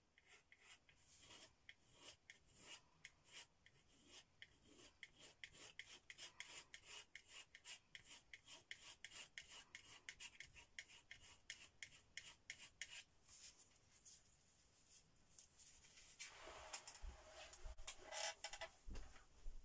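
Metal palette knife scraping and dabbing acrylic paint onto the painting in quick short strokes, about two or three a second, quiet throughout. Near the end come a few louder rubbing sounds and low knocks.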